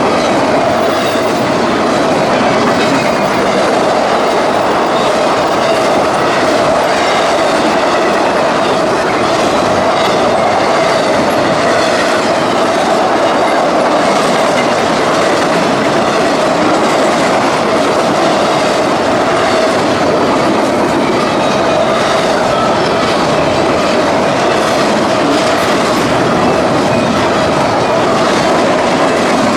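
CSX intermodal freight train rolling steadily past: continuous clickety-clack of wheels over the rails, with a steady whine from the wheels running through it.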